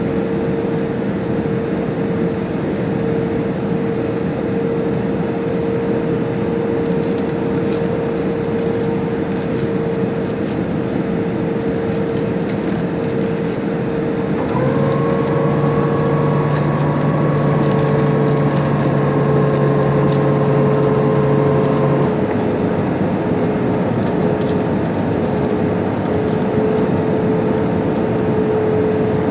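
Airbus A320 passenger-cabin noise on the approach: steady engine and airflow rush with a constant engine tone. About halfway through, a second steady whine starts and stops after about seven seconds.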